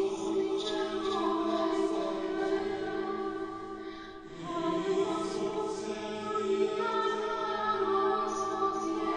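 Choral music with long held voices, thinning briefly about four seconds in before swelling back.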